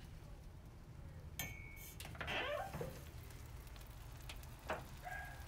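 The lid of a Char-Griller Gravity 980 charcoal smoker being lifted open. There is a brief metallic squeal about a second and a half in, then a few scrapes and clicks, all over a steady low hum.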